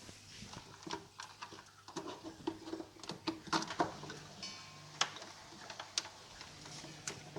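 Oase BioMaster Thermo 350 canister filter switched on: a low, steady pump hum with irregular clicking and pattering as water and air move through the newly started filter. A short buzzy tone sounds about four and a half seconds in.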